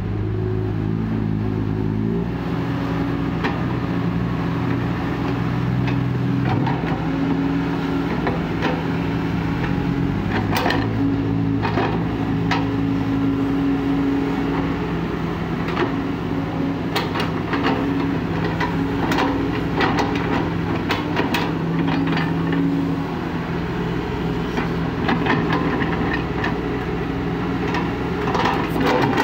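Kobelco SK140 excavator's diesel engine running under load, its pitch and level shifting as it works, with scattered knocks and clanks throughout.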